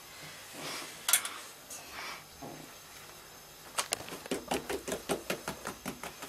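Hands folding thin yufka dough over a yogurt filling and patting it down on a floured wooden board: soft rustling with one sharp tap about a second in, then a quick even run of taps, about four or five a second, from about four seconds in.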